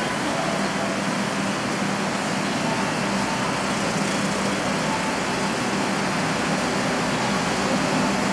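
Steady vehicle running noise: an even rush with a constant low hum, unchanging throughout.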